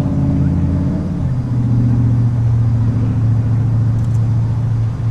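An engine running steadily with a low hum, its pitch dropping a step about a second in and then holding.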